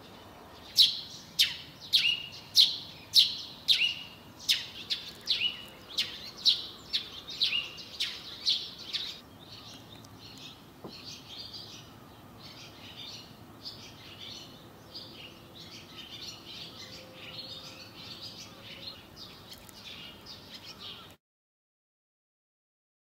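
A small bird calling a string of loud, sharp notes that slide downward, about two a second, for the first nine seconds or so, followed by softer, busier twittering chirps; the sound cuts off shortly before the end.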